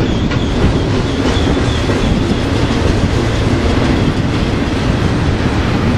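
Freight train of double-stack intermodal cars rolling on the rails: a steady, loud rumble of wheels on track.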